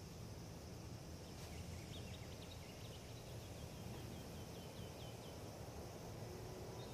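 Faint steady wind rumble. About a second and a half in, a small bird calls a quick run of short falling chirps, about six a second, lasting some two seconds.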